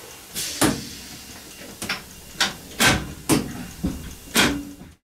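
Sharp mechanical clicks and knocks in an EN57 electric train's driver's cab, about eight of them spread over five seconds; then the sound stops dead.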